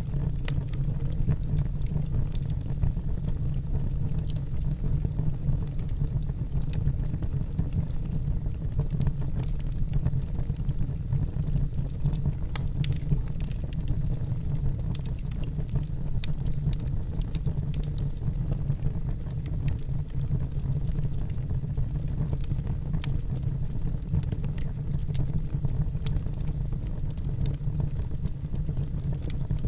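Wood campfire burning: a steady low rumble with scattered sharp crackles and pops of burning wood.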